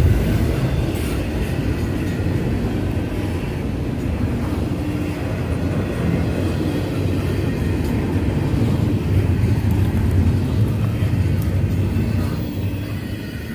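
Double-stack intermodal container train passing close by: the steady low rumble of its well cars' wheels on the rails, fading near the end as the last car goes past.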